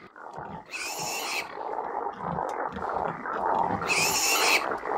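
A growling, animal-like rough sound from an experimental music collage, growing louder. Two short bursts of hiss come in, about a second in and about four seconds in.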